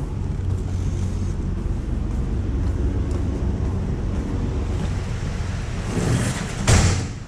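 A steady low rumble from a ship, with wind on the open deck. Near the end there is a short, loud burst of noise as the wheelhouse door is passed.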